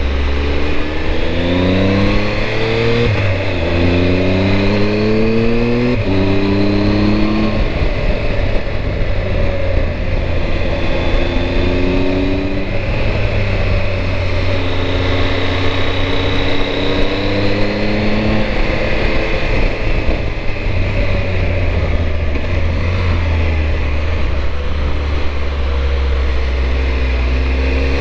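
Triumph Tiger 1200 motorcycle engine accelerating hard through the gears, with upshifts about three and six seconds in, then rising and easing off in turn as it climbs, over steady wind rush.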